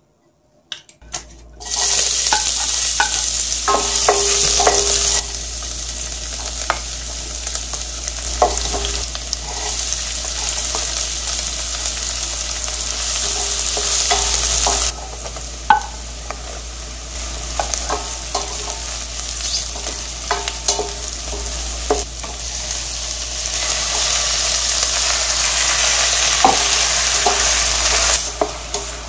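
Chopped aromatics, then chicken breast pieces, sizzling in hot olive oil in a stainless steel wok while being stirred with a spatula that clicks and scrapes against the pan. The sizzle starts suddenly about two seconds in.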